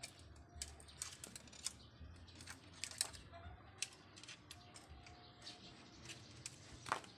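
Faint, irregular small clicks and taps of hands handling a bicycle's brake cable and handlebar brake lever while it is being fitted, the sharpest about three seconds in and near the end.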